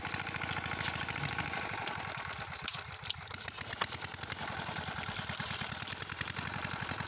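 Small engine running steadily with a rapid, even beat, most likely the engine of a water pump draining the pond.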